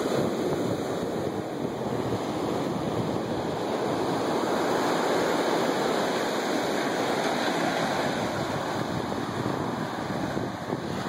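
Ocean surf washing up onto a sandy beach: a steady rush of breaking waves that swells a little midway.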